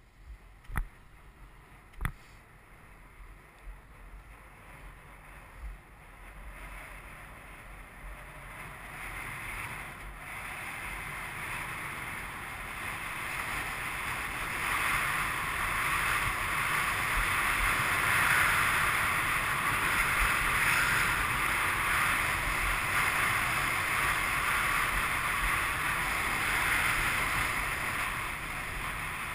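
Atomic skis carving on hard, frozen groomed corduroy snow at 18 °F: a steady scraping hiss from the edges, mixed with the rush of wind, growing louder as speed builds from about six seconds in and staying loud through the second half. Two sharp clicks come in the first couple of seconds.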